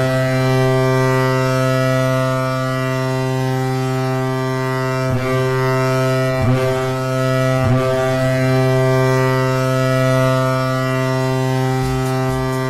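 Hockey arena goal horn, a deep ship-style air horn sounding one long steady blast with a low pitch.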